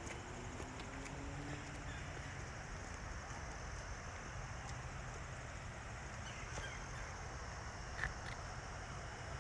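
Steady low outdoor rumble with a few faint clicks and ticks.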